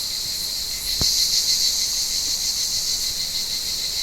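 Cicadas singing in chorus, a steady high-pitched drone that swells about a second in, with a single brief knock at the same moment.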